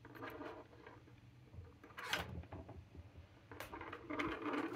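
A serger being shifted on a tabletop: a few short knocks, then a longer scraping slide near the end.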